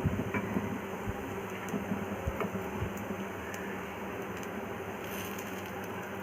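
Breaded vegetable cutlets shallow-frying in hot oil in a frying pan, a steady sizzle, with a few light knocks from handling in the first three seconds.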